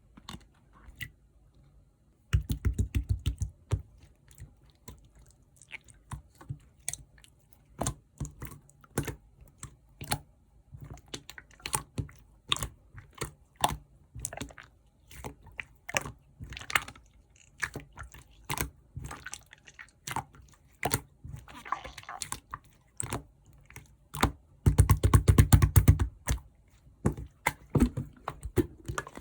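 Clear slime being squeezed, folded and pressed by hand, giving sharp clicks and pops of trapped air, with two stretches of rapid crackling, about two seconds in and near the end.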